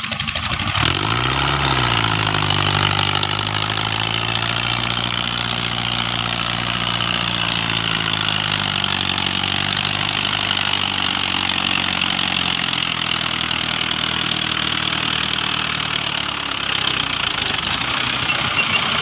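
Mahindra Arjun Ultra-1 555 DI tractor's four-cylinder diesel engine revving up about a second in, then held at steady high revs under load while hauling a loaded trolley uphill.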